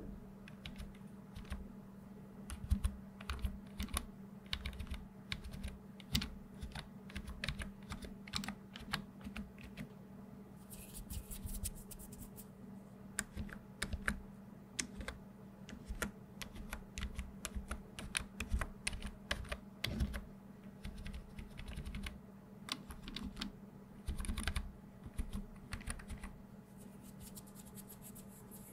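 Typing and tapping on a rainbow-backlit computer keyboard: an irregular stream of key clicks.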